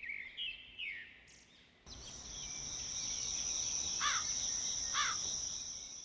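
Outdoor nature ambience: a few short bird chirps, then a steady high-pitched insect trill, like crickets, with two quick falling bird calls about a second apart.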